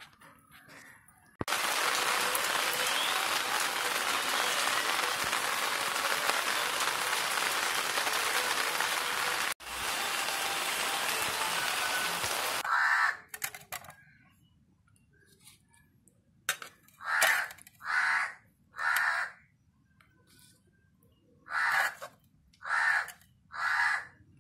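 A loud, steady hiss lasts about eleven seconds, broken by a brief cut near the middle. It then stops, and crows caw six times in two runs of three, each call short and harsh.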